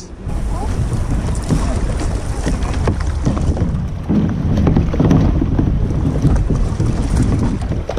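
Wind buffeting the microphone over water splashing and slapping around plastic sit-on-top kayaks as one is paddled in, with irregular small splashes.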